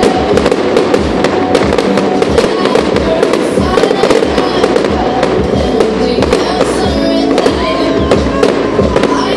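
Fireworks display: a rapid, continuous run of bangs and crackles from bursting shells, with music playing loudly underneath.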